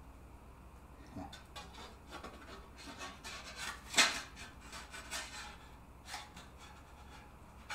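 A spatula scraping and clacking against frying pans while thin egg omelette layers are lifted off and stacked on a plate, with one sharp clack about four seconds in.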